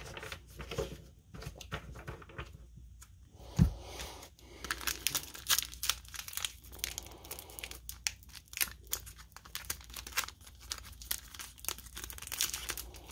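A stack of trading cards being gathered and squared up by hand: rustling and clicking that gets busier about five seconds in, with a single thump a little before.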